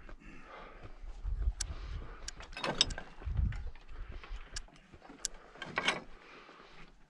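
Boots crunching and clicking over loose talus, stones clinking and shifting underfoot at an irregular pace, with two louder scrambling clatters about three and six seconds in. Low rumbles come and go beneath.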